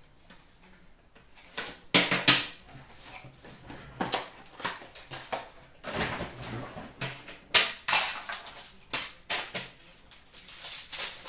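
Unboxing noises of an Upper Deck Premier hockey card tin and its packaging: a string of separate knocks, scrapes and crinkles as the metal tin is slid out, set down and opened.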